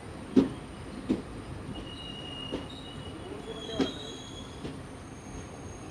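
Passenger train coach wheels rolling slowly through the station, giving about five irregular sharp knocks as they cross rail joints, with short high-pitched wheel squeals in between over a low rumble.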